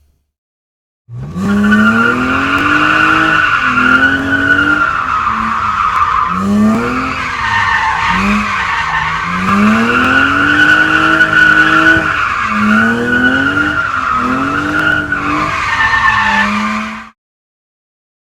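Car drifting: tyres squealing without a break while the engine revs up and down several times. It starts about a second in and cuts off suddenly near the end.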